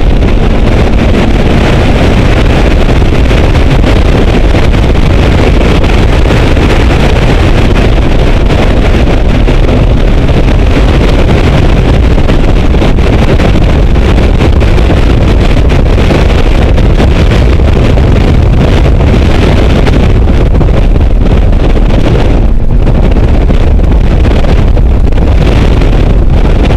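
Heavy wind buffeting on the microphone of a car-mounted camera, over the low rumble of the car's engine at track speed. The noise eases briefly a few seconds before the end.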